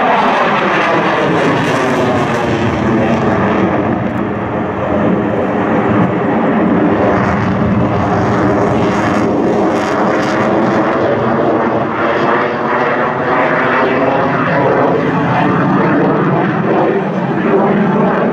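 A General Dynamics F-16 Fighting Falcon's single turbofan at high power, its afterburner lit as it climbs: a loud, continuous jet rush. Its tone swirls slowly up and down as the aircraft moves through its manoeuvres.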